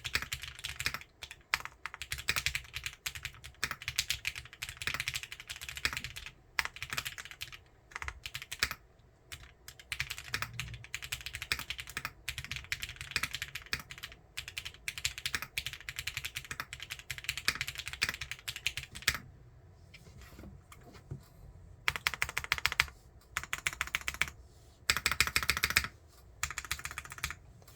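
Roxy60 60% mechanical keyboard being typed on quickly: broken-in, lubed Cherry MX Black linear switches with 62 g springs under PBT keycaps, in an O-ring-mounted case with a brass backplate. Fast, continuous keystrokes, a pause about two-thirds of the way through, then a few short bursts of typing.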